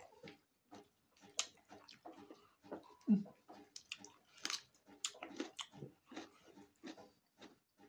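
Close-up eating sounds: irregular wet chewing and lip-smacking clicks, with a brief low sound about three seconds in.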